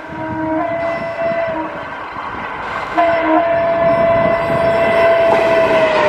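WAP-4 electric locomotive's horn sounding in a few short blasts, then one long blast from about halfway that drops slightly in pitch near the end as the locomotive passes, over the rumble and clatter of the express train on the track.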